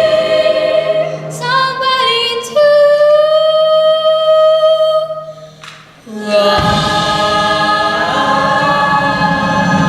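Show choir singing in harmony. A long held chord fades out about five seconds in, and the full choir with accompaniment comes back in about a second later.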